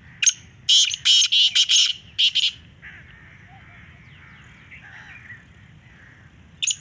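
Caged black francolin calling: a quick run of about six loud, clipped notes over the first two and a half seconds, then quieter, with another call starting right at the end.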